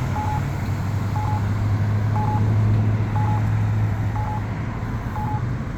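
Campbell Guardian Wave accessible pedestrian signal sounding its locator tone, a short beep about once a second, while the walk signal has not yet come on. A vehicle engine drones underneath, swelling in the middle and easing off near the end.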